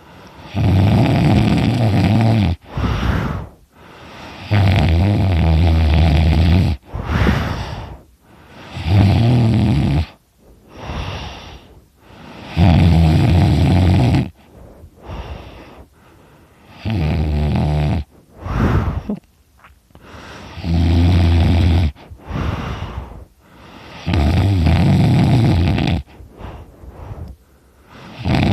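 A sleeping person snoring loudly. Each low, buzzing snore lasts about two seconds and comes roughly every four seconds, with quieter breaths between.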